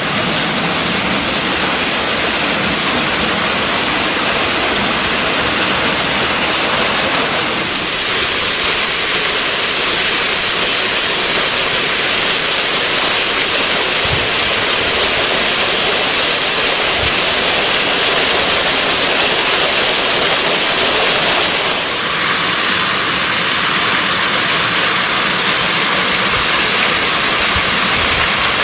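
The partly frozen Covel waterfall (Cascata Rio Vioz) rushing steadily, its water still falling beneath a curtain of ice and icicles.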